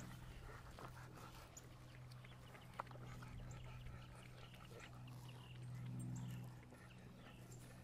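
French bulldogs play-wrestling on grass, heard as faint scattered small sounds over a steady low hum that swells briefly about six seconds in.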